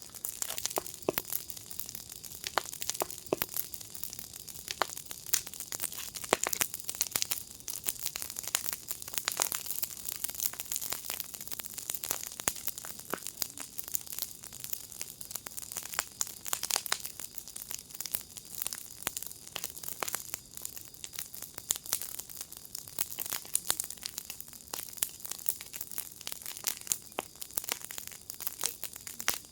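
Wood fire in a firepit crackling: a steady hiss with dense, irregular pops and snaps.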